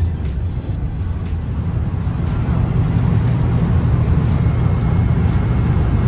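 Steady low rumble of a bus driving, heard from inside the cabin: engine and road noise, growing a little louder about two and a half seconds in.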